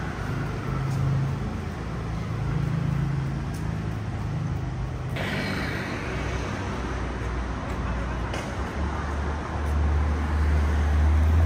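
Steady low rumble and noise of a moving vehicle. A brighter hiss comes in about five seconds in, and the rumble grows louder near the end.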